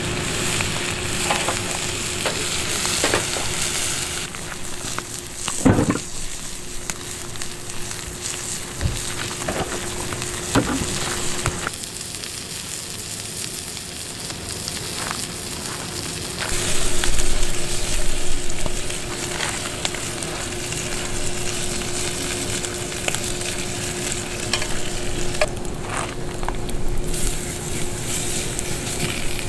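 Pork belly sizzling steadily in a frying pan over a wood fire, with a few short knocks as the meat is handled, a little louder about two-thirds of the way through.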